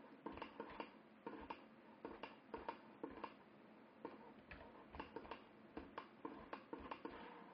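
Faint, irregular clicking of a computer mouse and keyboard, about three or four clicks a second.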